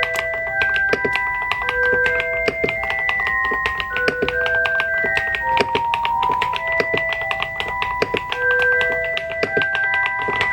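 Typing on a mechanical keyboard: quick, uneven key clicks several times a second throughout. Under it runs background music of sustained bell-like notes playing a melody.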